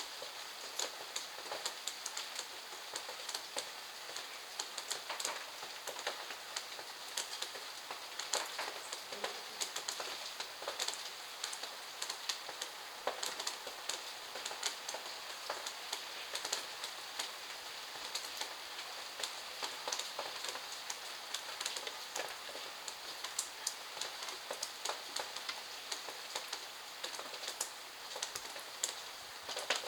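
Steady rain falling in a backyard, an even hiss with many close, sharp drips and drop impacts ticking irregularly throughout.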